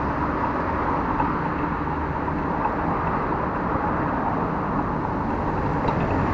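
Steady road and traffic noise heard from a moving bicycle, with a few faint ticks.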